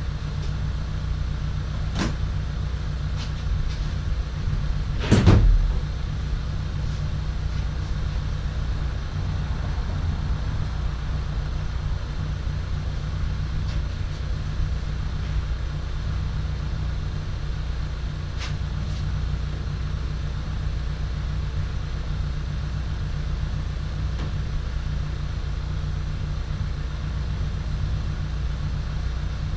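Steady low hum, with a few light clicks and one louder clunk about five seconds in, from hands working on a Mazda Miata's removable hardtop.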